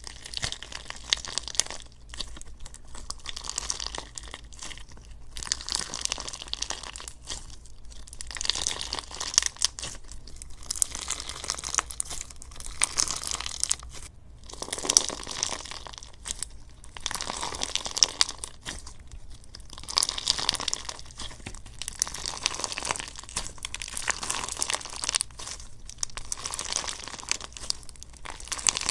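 Slime worked by hand close to the microphone, squeezed and pressed in repeated bursts of crisp crackling and crunching with short pauses between them.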